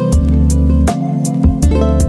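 Background music: strummed guitar chords over a low bass line, with a steady beat.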